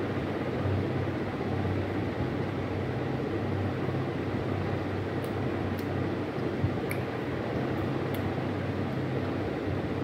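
Steady whirring hiss of an electric room-cooling appliance running. A few faint crisp clicks midway come from chewing toast.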